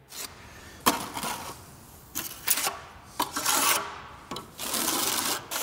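Steel trowel scraping and spreading wet plaster across a perforated clay brick, in a series of strokes about a second apart.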